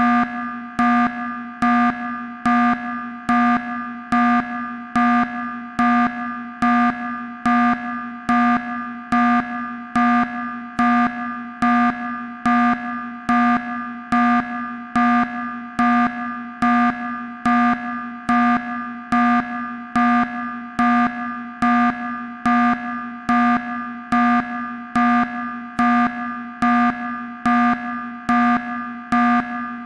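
Electronic alarm sound effect: a low electronic tone pulsing steadily, a little more than once a second.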